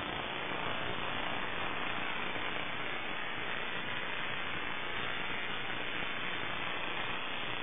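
Steady static hiss with no pitch or rhythm, typical of the audio channel of an analog FPV video link between telemetry voice calls.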